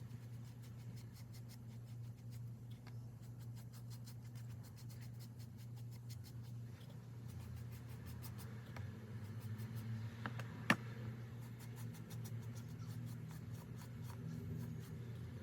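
Quiet handling noises of craft work, light rubbing and scraping with faint ticks, and one sharp click about ten and a half seconds in, over a low steady hum.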